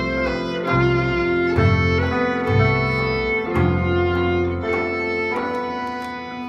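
Live violin and guitar music: the violin plays a melody of held notes over low notes that change every second or so.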